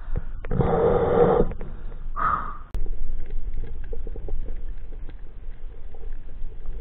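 A spearfisher's breathing at the surface through a snorkel: a loud rough breath about half a second in that lasts about a second, then a shorter breath about two seconds in. The sound then cuts to underwater: a steady low hum with scattered faint clicks from the reef.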